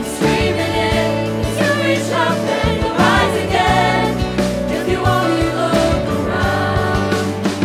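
Several young voices singing a Broadway show tune together over sustained instrumental backing, with vibrato on the held notes.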